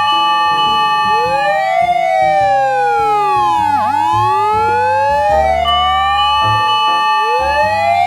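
Fire engine siren wailing in long, slow rising and falling sweeps, over background music with a stepping bass line.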